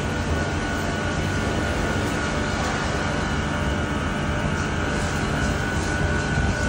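Ryko Pulse automatic car-wash gantry running: a steady mechanical drone with a thin, steady whine above it.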